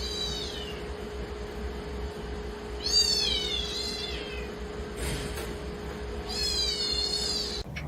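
Domestic cat meowing three times, about three seconds apart, each call drawn out and falling in pitch. A faint steady hum runs underneath.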